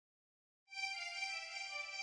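News logo intro music: a sustained chord of several steady tones that comes in after about two-thirds of a second of silence.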